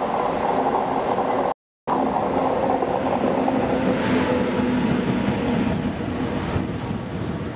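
3E-100 electric locomotive running light past at close range: a steady electric hum with wheel-on-rail noise, and a rising hiss as it comes alongside. The sound cuts out completely for a moment about one and a half seconds in.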